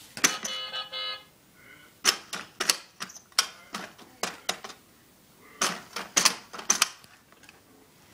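Toddler handling a plastic baby activity walker: a brief steady electronic tone from the toy just after the start, then two spells of sharp, irregular plastic clacks and taps.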